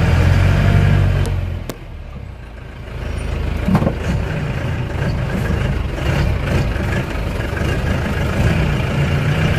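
A motor vehicle's engine and road noise: a steady low drone that eases off for about a second around two seconds in, then picks up again, with two sharp clicks just before the dip.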